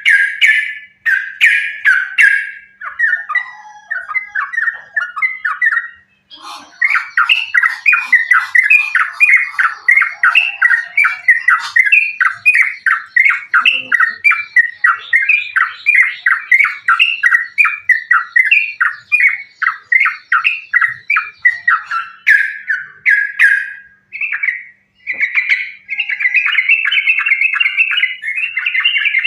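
Yellow-vented bulbul (trucukan) singing in a fast, almost unbroken run of short chattering notes, about four a second. A few short phrases come first, and there is a brief pause near the end before it resumes. It is an excited fighting song, the kind played to provoke other bulbuls into singing.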